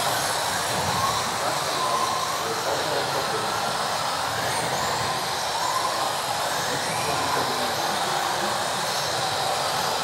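Several electric RC off-road buggies of the modified class racing together, their motors whining up and down in pitch as they speed up and slow down, over a steady hiss of tyres on the hall floor.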